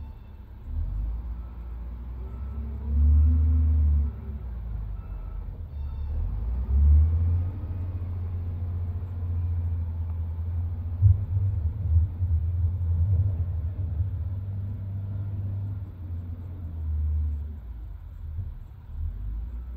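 SDLG wheel loader's diesel engine running with a low rumble, swelling louder several times as it works the pile and drives off, with a few brief knocks in the middle.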